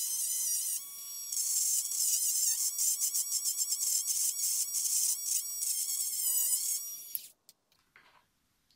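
Cordless rotary tool running with its bit grinding into a white plastic part, a steady motor whine with a fast, uneven chatter as the bit bites. The tool cuts off suddenly about seven seconds in, followed by a couple of light clicks.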